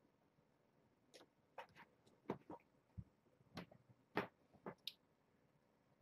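Kittens scampering and pouncing on a fleece blanket: a scattered, irregular run of light taps and thumps, starting about a second in.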